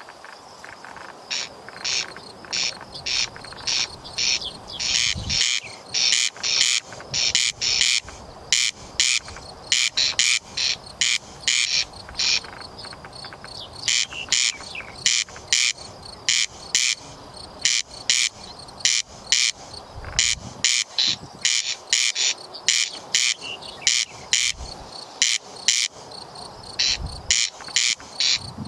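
Corn crake calling: a long series of dry, rasping crex-crex notes at about two a second, with a short break near the middle.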